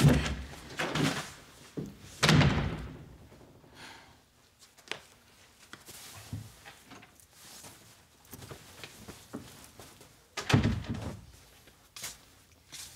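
A door shutting with a thud twice, once about two seconds in and again about ten and a half seconds in, with quiet room sound between.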